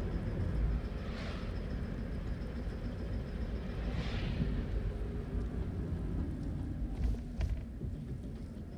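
Toyota Aqua hybrid driving, heard from inside the cabin: a steady low road rumble, with two brief whooshes about a second and about four seconds in, and a couple of clicks near the end.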